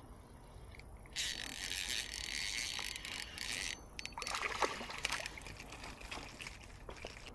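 A small bass hooked on a fishing line, splashing at the water's surface as it is reeled in and lifted out. About a second in there are a couple of seconds of steady rushing hiss, then scattered splashes and clicks.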